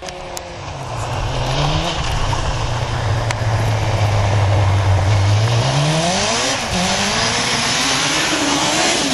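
Honda CBR600 inline-four motorcycle engine in a quad bike, running steadily at low revs, then revving up about five seconds in with several quick rises and falls in pitch before holding at a higher speed.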